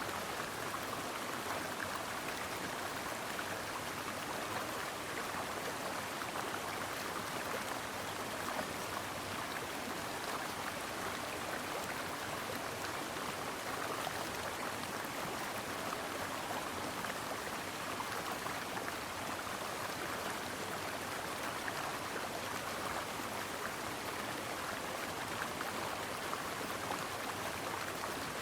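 A stream flowing steadily over rocks: an even, continuous rush of water.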